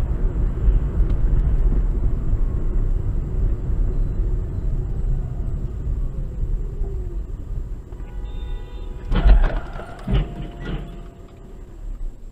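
Road and engine rumble inside a moving car, slowly easing as it slows. About eight seconds in there is a brief steady high tone, then a loud crash and two further impacts as a vehicle ahead collides and rolls onto its side.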